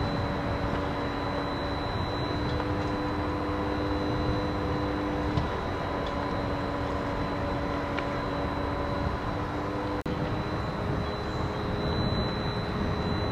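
Steady rumble of running engines with a few held droning tones. It drops out for an instant about ten seconds in.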